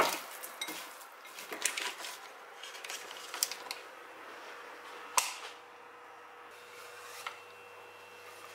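Scattered light clicks and taps of kitchen handling: a bowl set down, the camera moved and a wooden cutting board tipped over a frying pan. One sharper click comes about five seconds in, over a faint steady hum.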